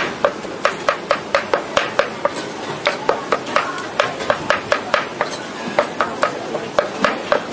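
Meat cleaver chopping and mincing pork and greens in a metal pan, the blade striking the pan about three times a second with a short metallic ring after each stroke.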